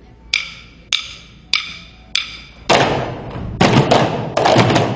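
Four evenly spaced wood-block strikes, a little over half a second apart, each with a short bright ring; a loud, dense clattering noise takes over just before the three-second mark.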